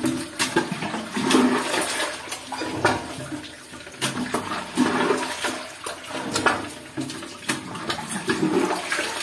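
Shallow muddy water sloshing and splashing as a bare hand gropes about under the surface, with irregular sharp splashes.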